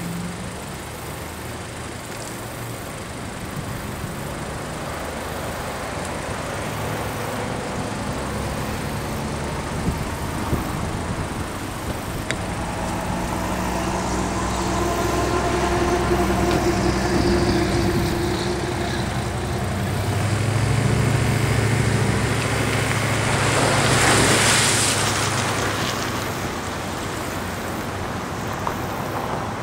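Volkswagen sedan's engine running and pulling the empty boat trailer up the launch ramp. It grows louder through the middle, with a rushing noise near the end as it passes closest.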